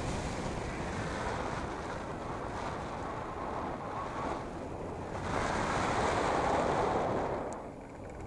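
Airflow rushing over the microphone of a hang glider in flight: a steady wind rush that swells louder about five seconds in and eases off near the end.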